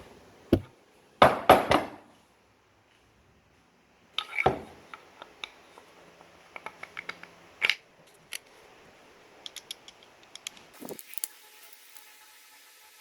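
A few sharp knocks near the start, then a scattered run of light clicks and taps: hand tools working on and handling a wooden Japanese plane body.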